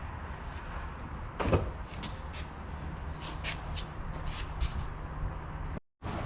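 Knocks and clicks of a bucket seat being handled into a car, with a short, loud squeak falling in pitch about a second and a half in, over a steady low hum.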